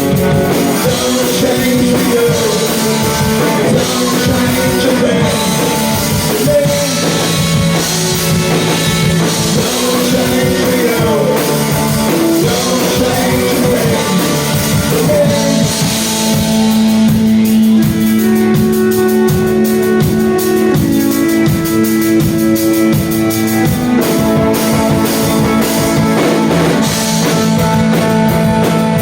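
Rock band playing a song, with a drum kit, electric guitar and a singing voice.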